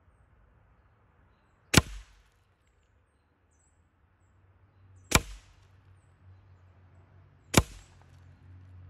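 Hatsan Invader Auto .25 calibre PCP semi-automatic air rifle firing three shots a few seconds apart. Each shot is a sharp crack followed by a brief low thump.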